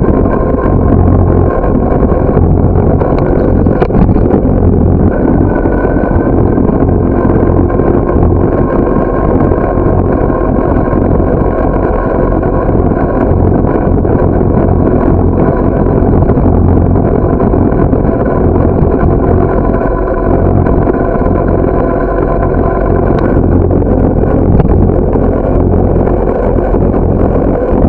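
Steady loud rumble of wind and road noise on a bicycle-mounted camera while riding, with a faint continuous whine above it and no distinct events.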